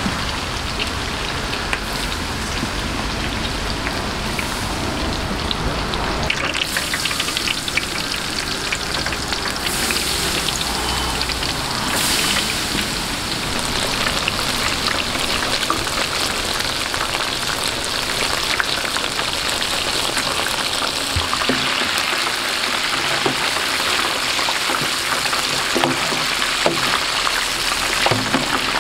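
Battered shrimp deep-frying in a vat of hot oil: a steady, dense crackling sizzle.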